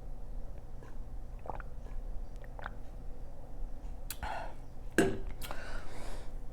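A person drinking water after eating: faint mouth clicks and swallows, then two louder gulps, each followed by a breath, about four and five seconds in.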